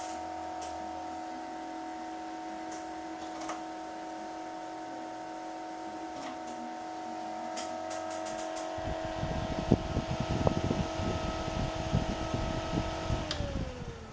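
Small electric cooling fan in a 20 W TV transmitter running with a steady hum of several tones; near the end the pitch falls as it winds down. From about nine seconds in, irregular knocks and rumbling cover it, and these are the loudest sounds.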